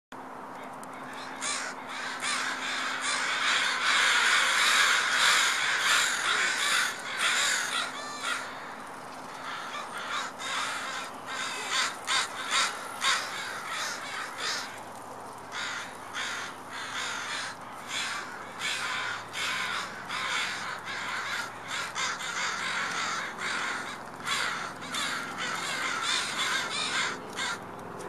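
A flock of crows cawing, many calls overlapping into a loud chorus for several seconds early in the clip, then thinning into separate, repeated caws.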